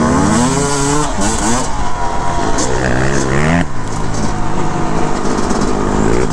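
Suzuki RM250 two-stroke dirt bike engine heard from the rider's seat, revving up and easing off repeatedly as it rides a trail, its pitch climbing in several runs during the first half and settling into a steadier run for the rest.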